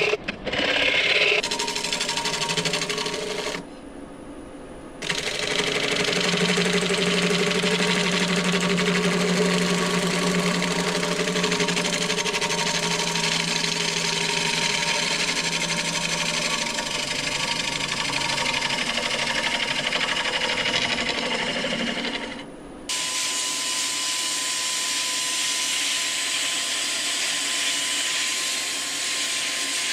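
A turning tool cutting the inside of a large apple wood bowl spinning on a wood lathe, a steady rough hiss with a low hum, twice dropping away briefly. From about 23 seconds in, a power drill spins a sanding disc against the outside of the spinning bowl, a steady whine over the hiss of the sanding.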